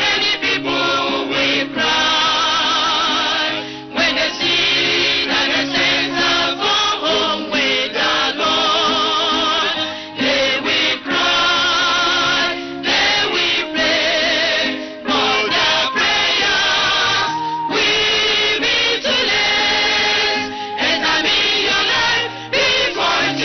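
Gospel choir singing with instrumental accompaniment, in phrases with short breaks between them.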